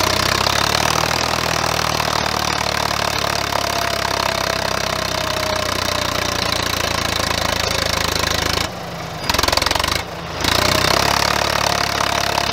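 Swaraj 963 FE tractor's three-cylinder diesel engine running hard under load as its four-wheel-drive tyres spin and dig into loose sand, the tractor failing to climb the dune. Steady engine note with two brief dips near the end.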